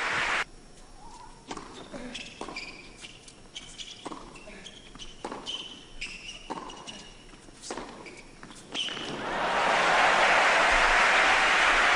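Tennis ball bounced repeatedly on the court before a serve, several sharp bounces about a second apart in a quiet indoor arena, with a few faint crowd sounds. About three-quarters through, loud crowd noise and applause swell up and hold.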